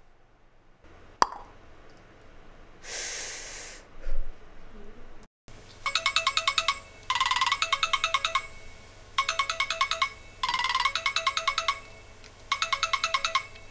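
A click, a short hiss and a thump, then a telephone ringing in pairs of rings, each ring a fast trill.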